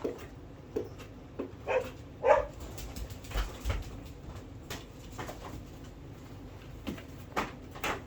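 Seven-week-old miniature Bordoodle puppies making two short whimpering squeaks about two seconds in, with light scuffling and small knocks around them.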